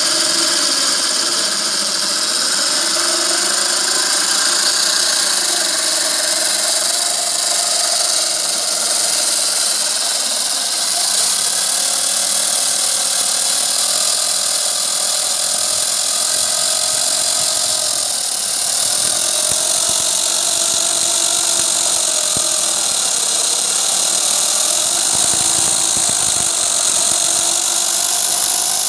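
Homemade electric wood saw driven by a washing-machine motor, running with a steady whine whose pitch wavers slightly.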